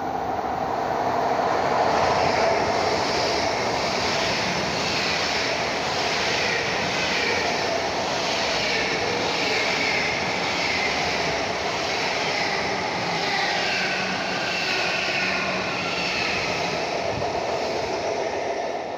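ICE high-speed train passing close by along a station platform: a loud, steady rush of wheels and air with higher whining tones that waver above it.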